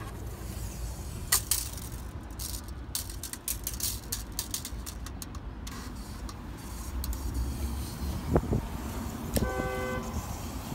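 Tape measure being pulled out along a brick wall, with a few sharp clicks over a steady low street rumble. Near the end comes a short horn toot of under a second.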